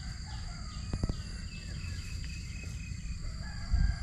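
Riverside ambience of insects buzzing steadily at a high pitch, with birds chirping and a held whistled call in the second half. A low rumble runs underneath and swells near the end.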